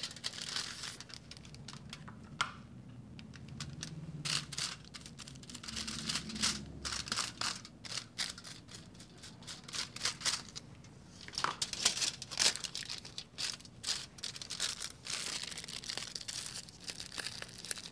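Aluminium foil crinkling and rustling in irregular clusters of crackles as hair-colouring foils are handled and folded around sections of hair.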